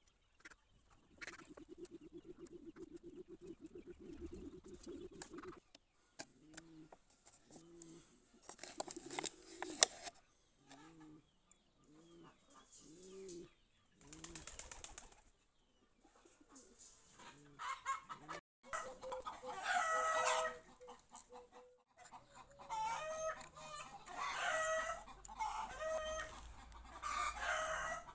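Chickens clucking, with a rooster crowing in the second half.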